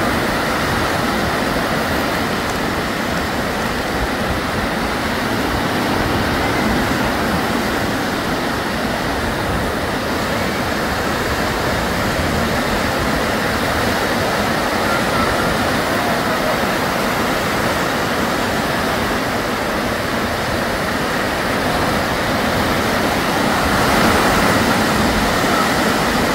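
Small sea waves breaking and washing over a sandy shallow shore, a steady surf noise that swells slightly near the end.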